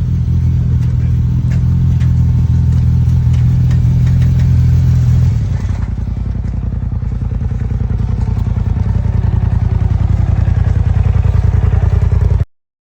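Can-Am side-by-side's Rotax engine running under way, with light clicks and rattles. About five seconds in, the engine note drops, then it builds steadily again before the sound cuts off abruptly near the end.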